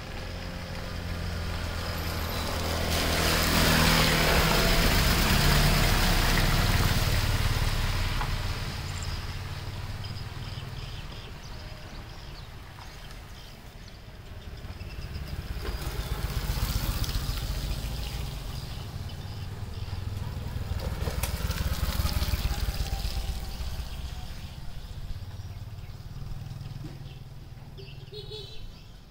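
Motor vehicles passing by: engine and road noise swells up and fades away twice, with a low steady hum under each pass.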